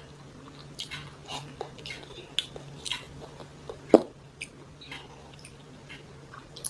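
A person chewing and eating noodles up close, with irregular wet smacks and small clicks of the mouth and a faint steady hum behind. One louder, sharp sound about four seconds in.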